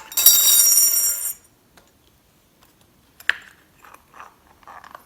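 A small metal object strikes a hard surface and rings brightly for about a second, then a sharp click and a few light metallic clicks and rattles follow.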